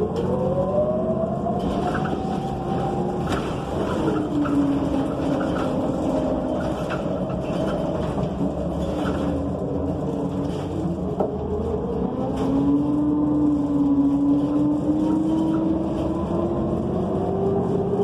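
NABI 45C-LFW transit bus under way, heard from inside: its Cummins Westport ISL G natural-gas engine and Allison B400R automatic transmission whine, rising in pitch as the bus gathers speed. The pitch drops at a gear shift about four seconds in, holds, then climbs again over the last several seconds, with light rattles from the cabin.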